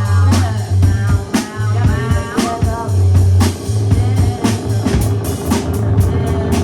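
Live band jam: a drum kit playing a steady beat of sharp hits over a loud, deep bass line, with other instruments in the mix.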